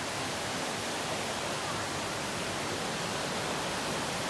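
Steady, even rushing noise with no distinct events and no speech.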